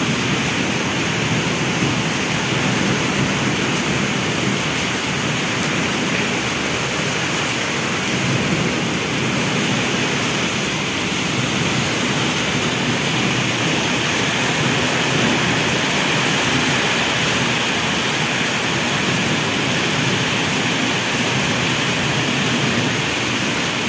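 Heavy rain falling steadily, a dense even hiss with no breaks or single drops standing out.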